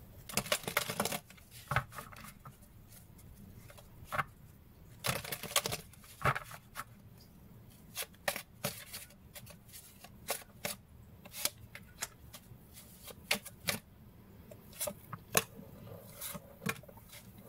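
A tarot deck being shuffled by hand. Irregular flurries of rustling and flicking cards come with pauses between them.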